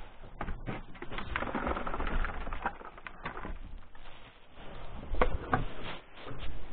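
Pigeons cooing in a shed, mixed with rustling and scattered clicks as things are handled and moved.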